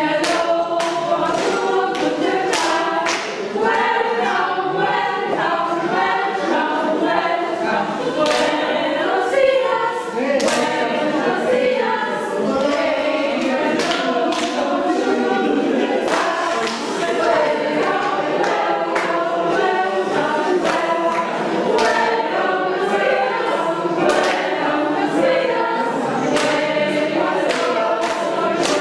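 Mixed choir of men and women singing a song, many voices together, continuous and steady in loudness.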